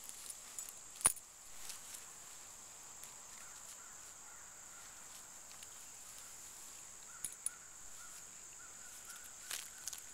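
Steady high-pitched drone of insects with faint repeated chirps over it, broken by a few sharp clicks, the loudest about a second in.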